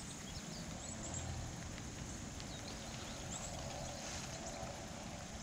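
Quiet outdoor ambience: a low, even rumble with many faint, short high chirps or ticks scattered through it.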